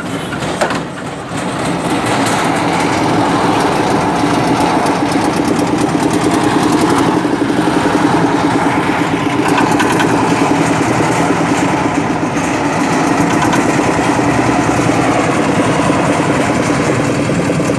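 Single-cylinder diesel engine of a concrete mixer running with a steady rapid chugging. It gets louder about two seconds in and then holds.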